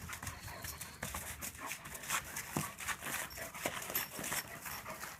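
A dog spinning in tight circles on artificial grass, its paws scuffing and patting the turf in quick, irregular steps.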